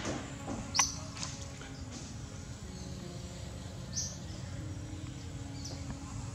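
Outdoor background noise with two short, high chirps, about a second in and again about four seconds in, and a few fainter chirps between.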